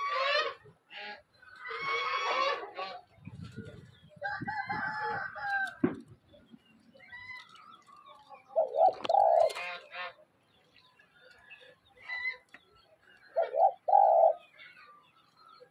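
Spotted doves giving short, low coos, loudest about 9 seconds in and again near the end. Chickens call in the first few seconds.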